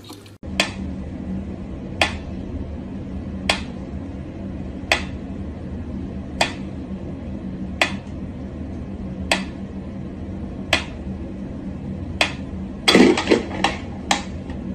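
Mechanical pyramid metronome ticking slowly and evenly, about one sharp tick every second and a half. Near the end comes a quick cluster of louder knocks and rattles.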